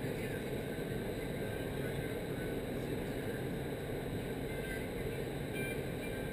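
Steady rush of air in a vertical wind tunnel, heard from inside the flight chamber while flyers are in the airflow.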